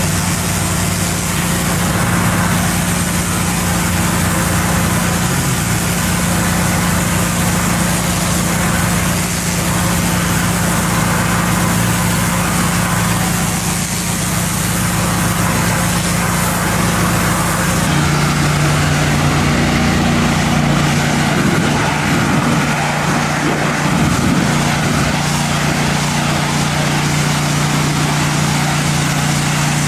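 Gas-engine pressure washer running steadily, with the hiss of the water spray over the engine note. About two-thirds of the way through, the spray hiss drops away and the engine settles to a slightly lower steady note.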